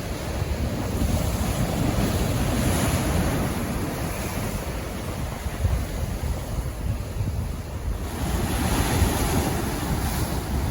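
Pacific Ocean waves washing in, swelling twice, about two seconds in and again near the end, with wind rumbling on the microphone.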